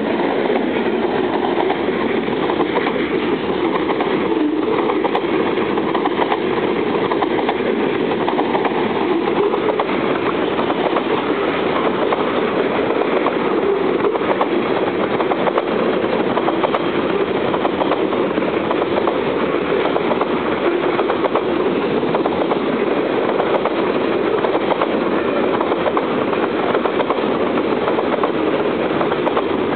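Covered hopper cars of a freight train rolling past close by: a steady, loud rolling noise of steel wheels on rail that does not let up.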